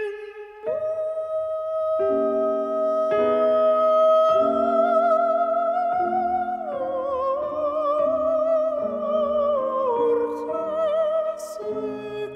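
Background music: a slow melody in a wavering, vibrato voice or lead instrument over piano chords.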